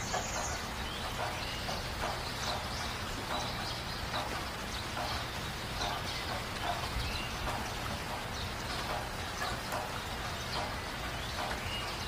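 Many short bird chirps and calls, several a second, over a steady low hum.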